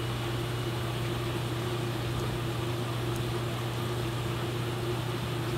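Steady low hum with a hiss from aquarium fish-room equipment, unchanging throughout.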